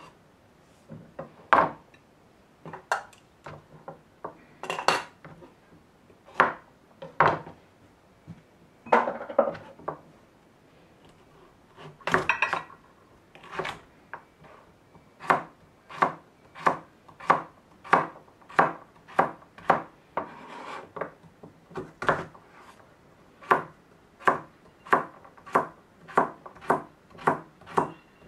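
Kitchen knife chopping a carrot on a plastic cutting board. Scattered sharp knocks at first, then a steady run of chops at about three every two seconds through the second half as the carrot is diced.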